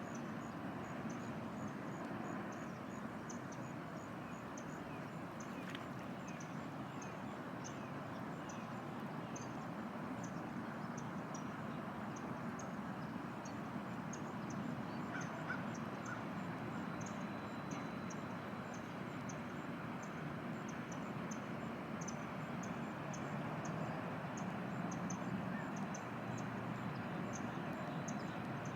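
Ibis calling with harsh, croaking calls over a steady hiss, with many short high-pitched ticks throughout.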